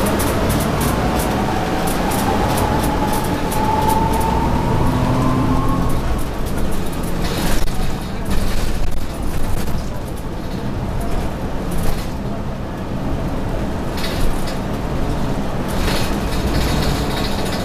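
Interior sound of an RTS city bus underway: the diesel drivetrain hums, with a whine rising in pitch over the first six seconds as the bus picks up speed. Short hisses and rattles come around eight seconds in and again near the end.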